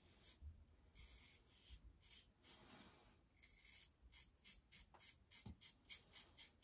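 Faint scraping of a Qshave adjustable double-edge safety razor cutting three or four days' stubble through shaving lather, in short strokes that come quicker in the second half, about three a second.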